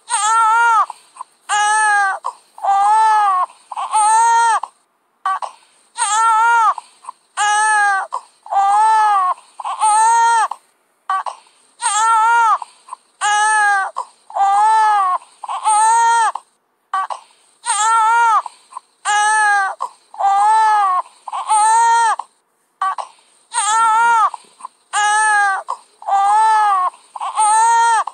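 A baby crying hard in a steady run of loud wails, about one cry a second with short gaps for breath, each cry rising and then falling in pitch.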